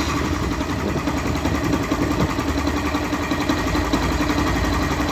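Yamaha Fazer 150's single-cylinder engine idling steadily, with an even, rapid pulse.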